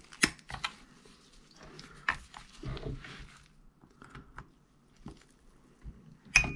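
Needle-nose pliers working at the wrist-pin retaining clip in a chainsaw piston: scattered sharp metal clicks and scrapes, and near the end a louder click with a brief metallic ring.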